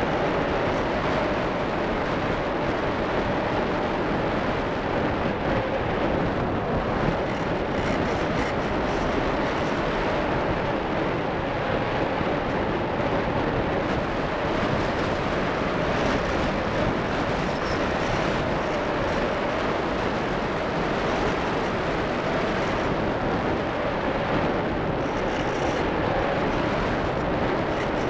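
Steady rushing airflow and a faint wavering hum, heard through a keychain camera riding on an RC model of a Schleicher ASW 15 sailplane in flight.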